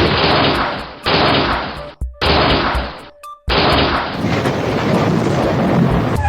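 Added gunfire sound effects: four bursts of rapid fire, each stopping abruptly, the last the longest.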